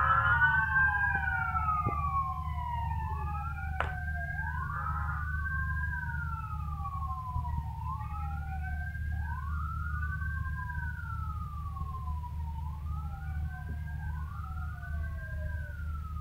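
Two police sirens wailing out of step with each other, each rising quickly and falling slowly every two to three seconds, over a steady low rumble. They are loudest at the start and fade a little over the first few seconds, then hold steady.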